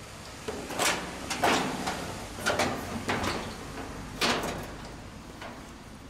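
Sheet-metal front panel of an LG air-conditioner outdoor unit clanking and rattling as it is unscrewed with a cordless drill-driver and worked loose: a string of sharp knocks, the loudest about a second in and just after four seconds.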